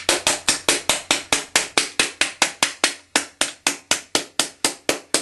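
Small hammer tapping quickly and steadily, about four or five blows a second, driving the bent-back end of a taxidermy neck wire into a goose's body form.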